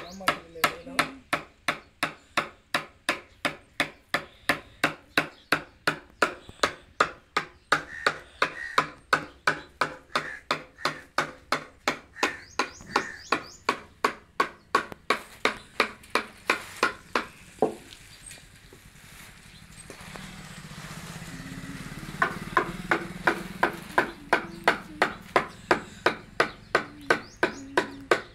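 A hammer tapping a wood-carving chisel into a wooden board in quick, steady blows, about three a second, as the chisel cuts curved grooves and lifts curls. The tapping stops for a few seconds a little past the middle, then picks up again at the same pace.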